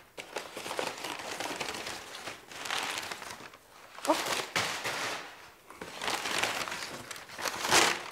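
Brown kraft packing paper rustling and crinkling in irregular surges as it is pulled out of a cardboard box and lifted in long strips, loudest near the end.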